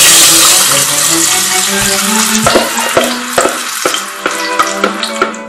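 Tomato purée poured into hot garlic oil in a stainless steel pot, sizzling loudly at first and fading as the oil cools under it. In the second half a wooden spoon knocks a few times against the pot.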